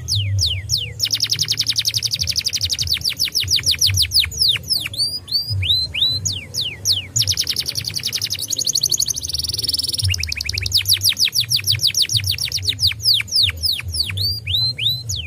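Yellow domestic canary singing a long unbroken song of rapid trills and quick downward-sweeping whistles, with a buzzier, higher trill a little past halfway. A steady low hum runs underneath.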